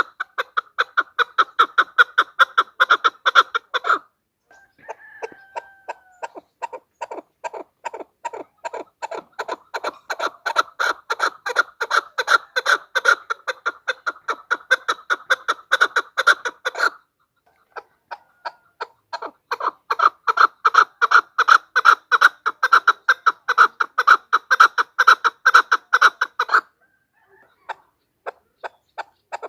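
Chukar partridge calling: long runs of rapid clucks, about five a second, each run swelling in loudness and broken by brief pauses.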